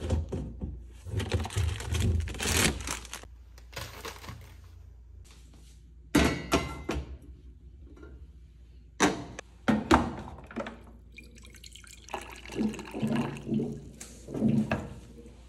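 Kitchen handling sounds: sharp clanks and knocks as a stainless steel pot with a glass lid is set on a gas stove. Near the end, water from a water dispenser runs into a ceramic mug.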